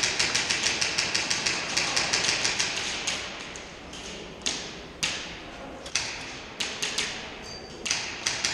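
Airsoft guns firing in rapid strings of sharp cracks, echoing in a large hall. Around the middle the firing thins to a few single shots, then it comes in quick strings again near the end.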